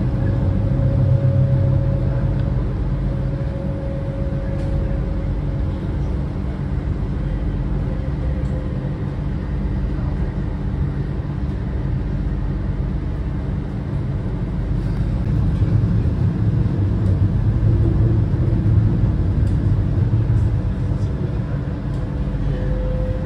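Alicante tram running along the line, heard from on board: a steady low rumble with a faint steady whine. It grows a little louder for a few seconds past the middle.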